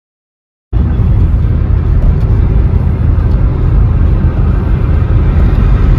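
Steady, loud, low rumble of a moving road vehicle, heard from inside, starting abruptly just under a second in.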